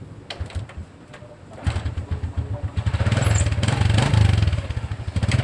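SYM Bonus 110 motorcycle engine starting about one and a half seconds in, after a few clicks, then running and growing louder from about three seconds in. It is the first run after a clutch lining replacement.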